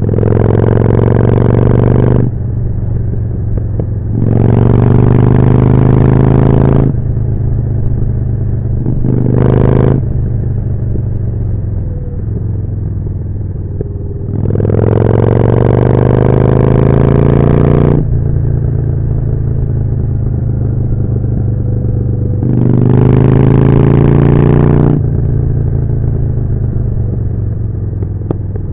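Harley-Davidson Forty-Eight's 1200 cc V-twin, through a Jekill & Hide aftermarket exhaust, under way on the road: five times the throttle opens and the engine note rises loudly, then drops back to a quieter steady run between pulls.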